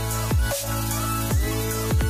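Background electronic music with a steady beat and held synth chords.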